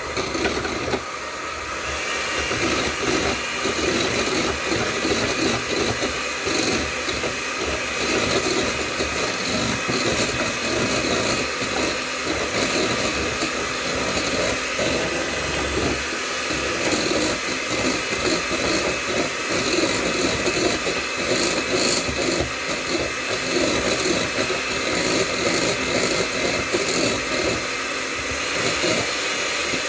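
Electric mixer running steadily, its beaters whisking a thin mixture of heavy cream and egg yolks in a bowl. The motor's whine shifts higher about two seconds in and then holds steady.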